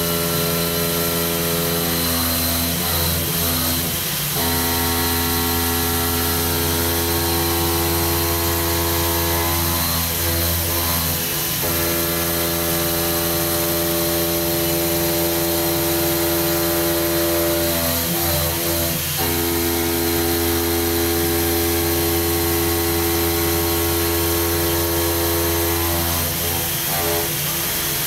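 CNC stone machining centre milling out a sink bowl in a solid stone block under water coolant: a steady hissing spray over a steady pitched drone from the spindle, which shifts to a new pitch about every seven seconds.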